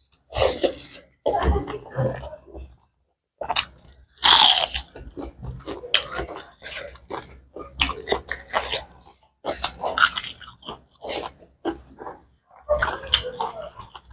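Close-miked eating of pork curry with rice: irregular chewing and biting with crunches, loudest about four seconds in.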